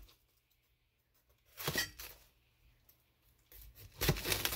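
Kitchen knife cutting the core out of a raw head of cabbage: two short spells of crisp crunching and tearing, about a second and a half in and again near the end.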